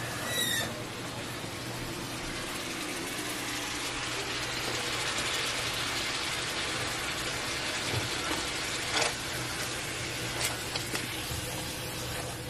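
Chicken pieces and cream cheese sizzling in a skillet, a steady hiss over a low hum. There is a short squeak near the start and a few sharp clicks and knocks in the second half.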